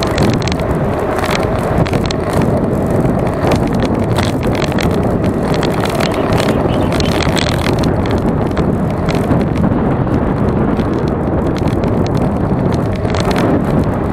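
Wind rushing and buffeting over the microphone of an action camera mounted on a moving bicycle, mixed with tyre and road rumble. It is a loud, steady noise.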